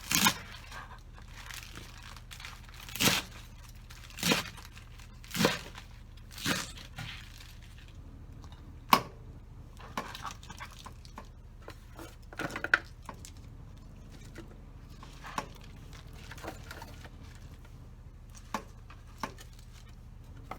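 Kitchen handling noises: a run of short rasping, tearing or rustling sounds, each about half a second long, in the first seven seconds, then scattered sharp clicks and light taps.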